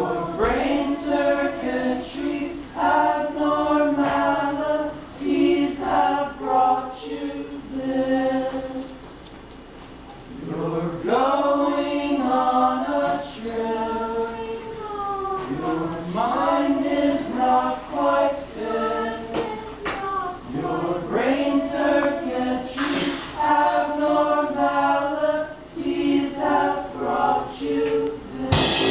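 Several voices singing unaccompanied in close harmony, their pitches sliding up and down between held chords. Right at the end a sudden loud burst of sound breaks in.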